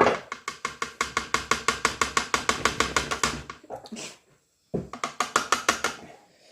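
Rapid, rhythmic knocking or rattling at about eight strokes a second, in two runs: one of about three and a half seconds, then after a short pause a shorter one of about a second and a half.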